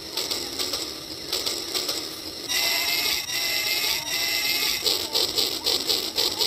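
Toy train running on its track: a mechanical whirr with rapid clicking. It gets louder about two and a half seconds in, adding a high whine, and a quick regular pulsing sets in near the end.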